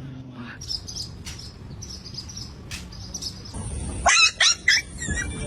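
Faint short high chirps from a pet bird, then a quick run of loud short animal calls with pitch sweeping up and down, starting about four seconds in.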